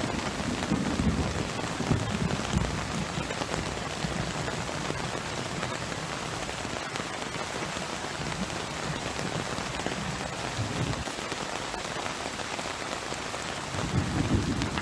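Heavy tropical rain falling and pattering on surfaces, a dense steady hiss. Low rumbles swell in the first few seconds and again near the end.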